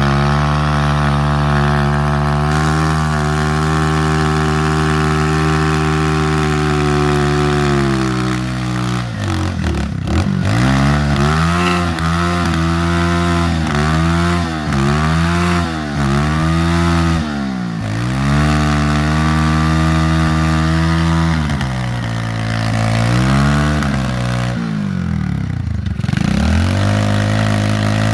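Three-wheeler ATV engine running at a steady idle, then revved up and down repeatedly for a burnout, dropping back to a steady idle near the end.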